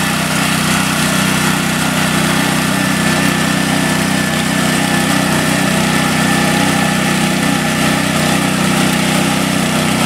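Walk-behind mini rice reaper's small engine running steadily under load as the machine cuts standing paddy, with a thin steady whine above the engine drone.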